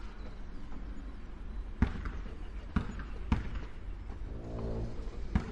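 A basketball bouncing on a court, four irregular bounces over a steady low background hum, with a short voice call about four seconds in.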